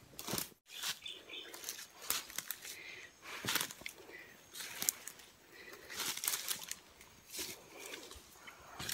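Footsteps crunching through dry leaf litter and undergrowth, with rustling of leaves and clothing and gear knocking close to the microphone, in irregular crackles and swells.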